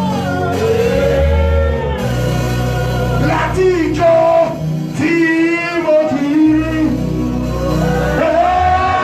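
Congregational worship song: a voice singing long, drawn-out notes over a band with steady bass and guitar.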